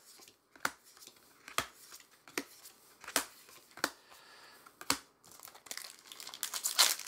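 A Magic: The Gathering booster pack's foil wrapper crinkling and tearing as it is opened near the end, after a series of light snaps about once a second from cards and packs being handled on the table.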